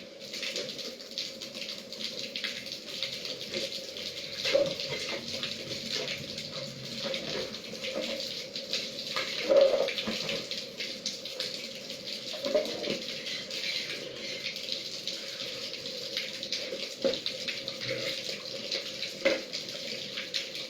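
Water running and splashing as an outdoor water filter tank is emptied for servicing, with a few short knocks or splashes along the way.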